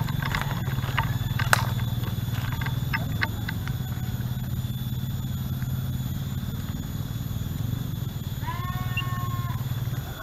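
Rustling and snapping of bamboo leaves and twigs underfoot as someone pushes through undergrowth, with scattered sharp snaps in the first few seconds, over a steady low hum. About eight and a half seconds in comes a single short animal call, held level for about a second.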